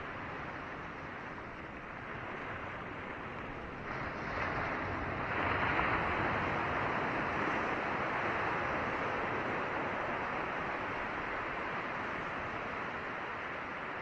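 Surf breaking and washing over a rocky shore, a steady rush of water. A wave surges in about four seconds in, is loudest around six seconds, then slowly eases off.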